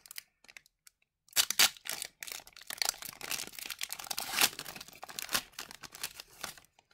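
A hockey card pack's wrapper being torn open and crinkled, in bursts of crackling rustle that start about a second in, with the loudest tears near the start and middle.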